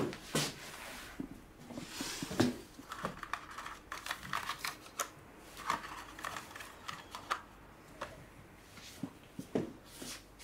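A sharp knock, then quiet footsteps and cloth-bag rustle with a run of small clicks and paper flicks as the cards of a spiral-bound flip desk calendar are turned.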